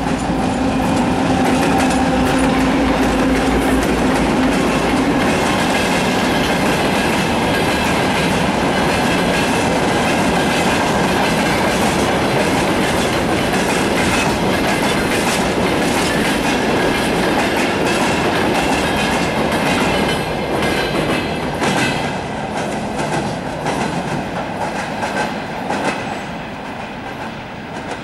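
2M62U twin-section diesel locomotive, with two-stroke 14D40 engines, passing close under power, then a long freight train rolling by with its wheels clicking over the rail joints. The engine sound is strongest in the first few seconds. The noise eases off as the end of the train passes, near the end.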